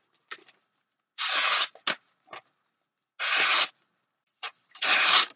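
Dull kitchen knife drawn three times through test material, each stroke a short half-second tearing rasp with small clicks between: the blade tears rather than slices because it is dull.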